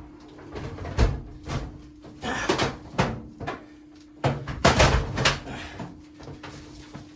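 Knocks and thunks of an over-the-range microwave's cabinet bumping against its wall mounting plate and the cabinet above as it is lifted and hooked into place, with a cluster of louder knocks about four to five seconds in. A steady low hum runs underneath.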